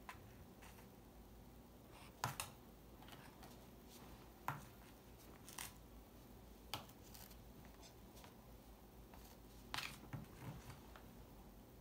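Scattered light taps and crisp clicks, seven or eight spread across several seconds with two close pairs, from a baby knocking a rice cracker against a plastic high-chair tray.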